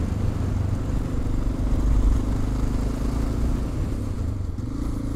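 Honda Dominator NX650's single-cylinder four-stroke engine running steadily as the motorcycle is ridden at an even pace.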